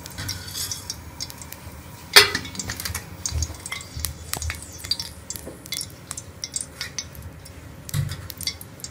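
Ghee heating in a metal kadai, with scattered faint crackles and ticks, and one louder clink of metal about two seconds in.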